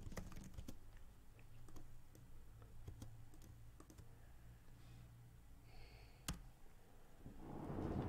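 Faint, scattered clicks of a computer mouse and keyboard over a low steady hum, with one sharper click about six seconds in and a brief soft rush of noise near the end.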